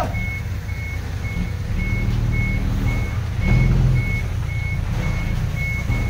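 Reversing alarm on heavy site machinery beeping steadily about twice a second, over a diesel engine running. The engine revs up briefly about three and a half seconds in.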